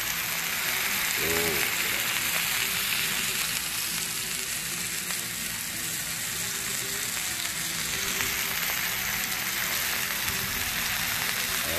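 T-bone steaks sizzling on a flat griddle over a charcoal fire, a steady frying hiss heard close up.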